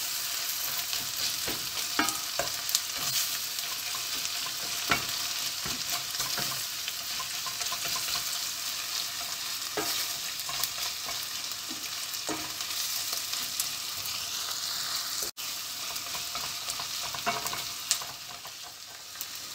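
Chopped onions and peppers with tomato and pepper paste sizzling in a stainless steel pot while a wooden spoon stirs them, with scattered scrapes and knocks of the spoon against the pot. The pastes are being fried until they smell fragrant.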